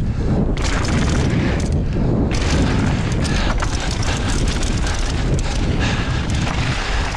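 Wind buffeting a handlebar or helmet action-camera microphone while a mountain bike descends at speed, mixed with the bike's tyres rolling over dry dirt and gravel. A loud, steady low rumble, with the hiss thinning out briefly a couple of times.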